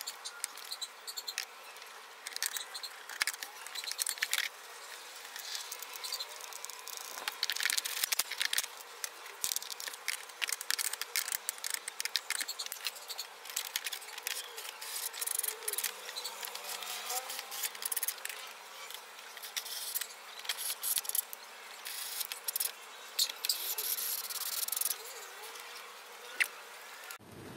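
Rustling and light clicking of cloth, tools and small items being handled in a Honda Click scooter's plastic under-seat storage bin, many short irregular clicks over a steady high hiss.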